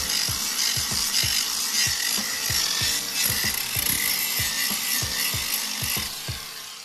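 Angle grinder running with an abrasive disc pressed against a chrome-plated aluminium alloy wheel: a steady, harsh grinding hiss with a thin motor whine, dying down near the end. Background music with a steady beat plays underneath.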